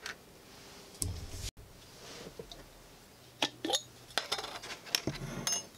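A scatter of light clicks and clinks as the hard plastic body halves of a 1967 Talking Barbie doll and a glass jar are handled.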